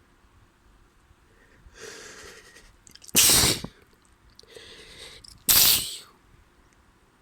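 Two loud sneezes from a person with a spring head cold, about two seconds apart. Each sneeze is preceded by a quieter drawn-in breath lasting about a second.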